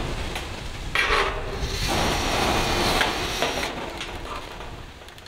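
Corrugated metal fence sheets rubbing and scraping against the steel pipe frame as they are held and shifted into place, with no drill running yet.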